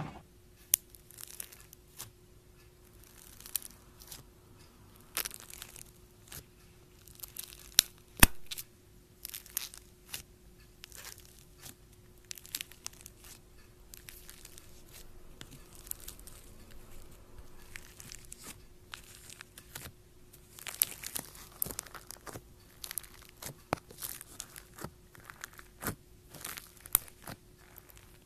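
Foam-bead slime (floam) being squeezed and pressed by fingers in a plastic tub, giving irregular crackling and popping as the beads and slime are worked, with a few louder pops. A faint steady hum runs underneath.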